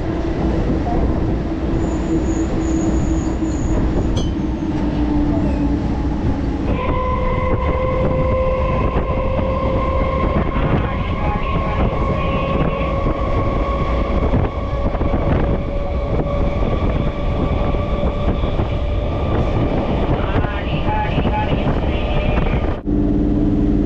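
Electric suburban (EMU) train running, heard from inside the coach: a steady rumble of wheels on rail under an electric motor whine. About seven seconds in, the whine jumps to a higher set of tones that slowly rise in pitch as the train gathers speed. Near the end the sound changes abruptly to a lower hum.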